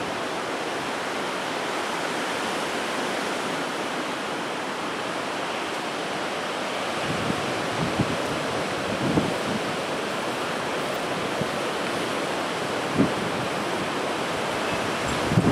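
Steady rushing noise of hurricane wind and rain, with a few brief low knocks of gusts hitting the microphone.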